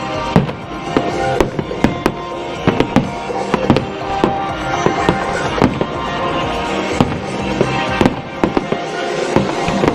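Fireworks bursting in a rapid series of sharp bangs over music with sustained tones. The sound cuts in abruptly at the start.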